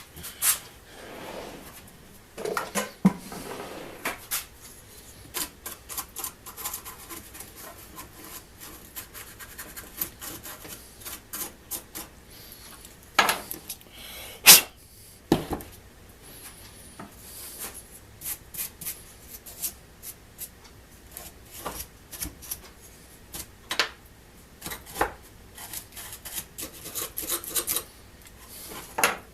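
Close handling and hand-tool work on an opened soldering gun: irregular small clicks, taps and scraping of plastic and metal parts, as the old cord is taken off and debris is cleaned out of the housing. A few sharper knocks stand out, around 3, 13 and 14 seconds in and near the end.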